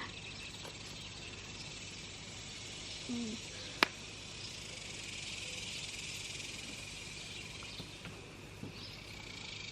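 Steady high-pitched evening insect chorus, with one sharp click about four seconds in.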